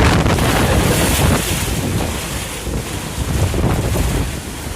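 Storm wind buffeting the microphone, a loud gusty rumble that is strongest for about the first second and a half and then eases a little.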